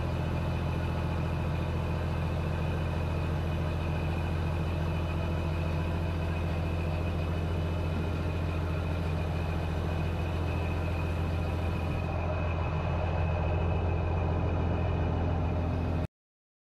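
Diesel engine of a Mack CH613 dump truck running steadily at a low idle while the trailer's hydraulic hoist raises the bed, a constant low hum that cuts off suddenly near the end.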